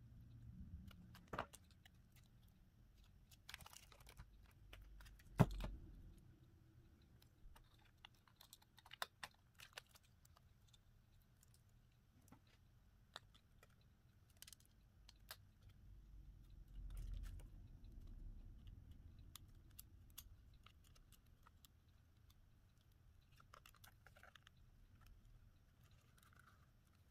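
Faint, scattered small clicks and taps of a smartphone and small parts being handled during a screen repair, with one sharper click about five seconds in and a soft low bump around seventeen seconds.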